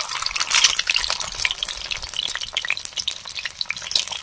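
Whole boiled eggs sizzling and crackling in hot oil in a kadhai, with a spatula stirring and turning them, giving occasional clicks against the pan.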